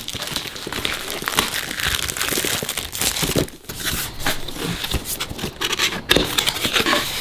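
Clear plastic shrink wrap being pulled off a small cardboard product box and crumpled in the hand, a dense crinkling and crackling with a short lull about halfway through.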